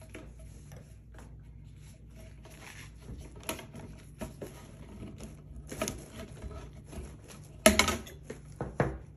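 Cardboard shipping box and its packing being handled: scattered rustles, scrapes and light knocks, with a louder burst of rustling and knocking about three-quarters through.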